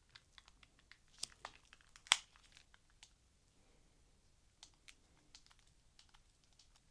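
Faint clicks and taps from a Nokia 7280 Lipstick phone being handled and its controls pressed. There is a quick run of clicks in the first three seconds, the sharpest about two seconds in, then a few scattered clicks.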